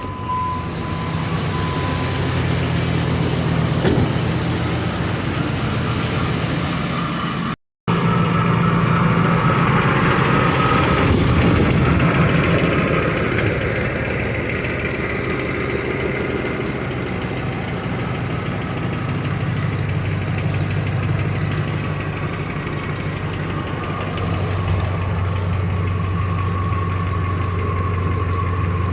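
Dodge Ram 1500 pickup engine idling steadily, its exhaust running through straight pipes in place of the catalytic converters. The pipe joints, freshly sealed with exhaust putty, hold without a leak.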